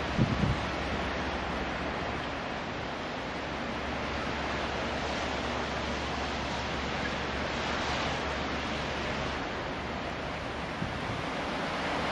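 Steady rushing noise of wind in a snowstorm, partly buffeting the microphone, over a low steady rumble. A few brief bumps just after the start.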